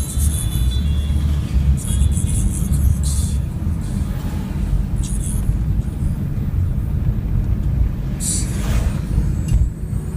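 Toyota Prius (ZVW30) on the move: steady low road and drivetrain rumble with short patches of high hissing noise every few seconds.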